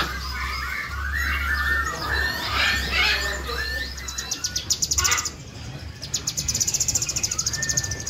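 Several small songbirds chirping and whistling in a jumble of short varied calls; about four seconds in, a fast, high rattling trill takes over.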